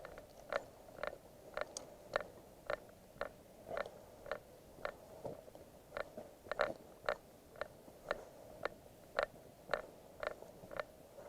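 Footsteps at a steady walking pace, about two a second.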